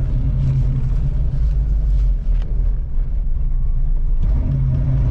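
Carbureted engine of a 1985 Oldsmobile Cutlass, on a newly fitted carburetor, idling steadily and a little low while still cold and warming up.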